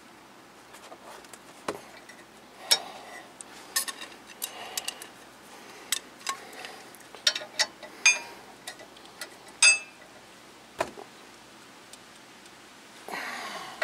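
Irregular metallic clicks and clinks of hand tools and brake hardware being handled, several ringing briefly. Near the end comes a short rasping burst of about a second.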